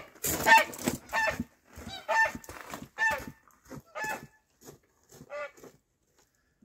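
White domestic goose honking repeatedly, about a call a second, the calls growing fainter toward the end.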